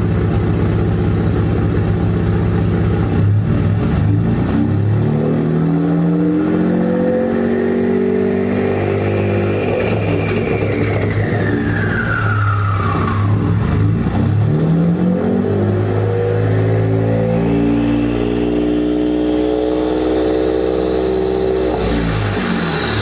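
2017 Ford F-150's 2.7L EcoBoost twin-turbo V6, running through catless downpipes and a 4-inch MBRP exhaust, pulls up twice. Each time a high turbo whistle rises as the turbos spool, then glides back down as the engine drops off, about halfway through and again near the end.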